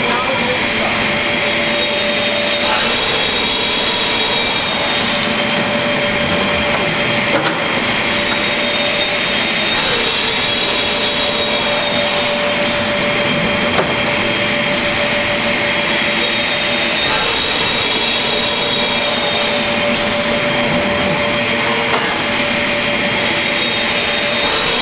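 Automatic MDF panel-cutting machine running, a loud steady mechanical whine and hiss with a constant hum.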